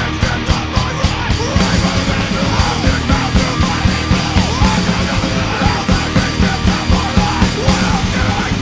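Powerviolence song: distorted guitars and fast, pounding drums under yelled vocals.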